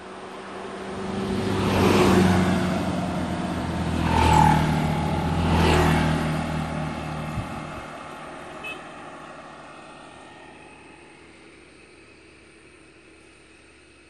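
Motor scooters passing close by on a road, three loud passes about two, four and a half and six seconds in, then the engine sound fading away into the distance.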